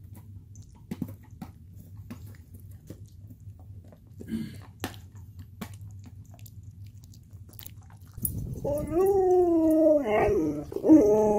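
A dog chewing softly, with scattered faint clicks, then from about eight seconds in a dog vocalizing in loud, long howl-like cries that waver up and down in pitch.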